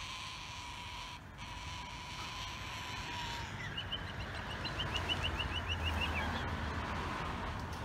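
White cockatoos squabbling on a wire: a rapid run of about fifteen short, high chattering notes, about seven a second, as the two birds lock beaks, over a noisy outdoor background. A faint steady tone in the background stops about three seconds in.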